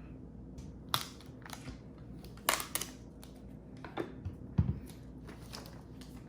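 Foam packing blocks being pulled off a new robot vacuum and handled: a few sharp scrapes and crinkles, about a second in, around two and a half seconds and again near four and a half seconds.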